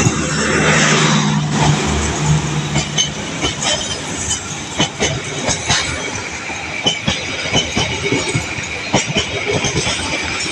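A train passing close by, its wheels clacking repeatedly over the rail joints.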